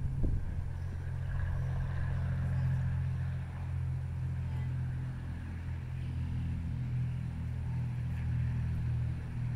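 A steady low engine hum, unchanging in pitch.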